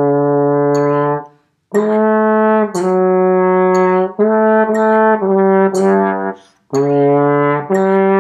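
Tenor trombone playing a slow solo line at about one note a second, in sustained notes grouped in three phrases with short breaks for breath. A metronome clicks about once a second. The tone has a slight double buzz, which the player puts down to tiredness.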